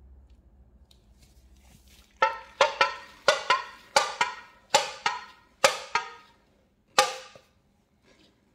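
About a dozen sharp knocks on a hard object, each with a short ringing tone. They come in irregular pairs about half a second apart, starting about two seconds in, with a last single knock near the end.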